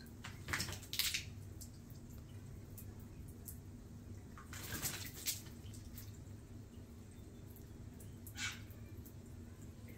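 Water splashing in a garden birdbath where a grey butcherbird bathes under a falling sprinkler spray. A few short splashes come about half a second in, around five seconds in and near the end, over a steady low hum.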